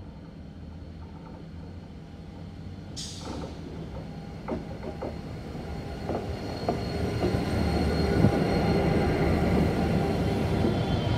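Pacific National 81 class diesel-electric locomotive leading a grain train, its engine and wheels rumbling louder as it approaches and passes close by. A thin steady wheel squeal and a few clicks of wheels over the rail come with it, and a brief hiss sounds about three seconds in.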